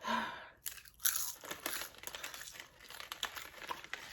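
Hot Cheetos crunching in irregular bursts, with crinkling mixed in.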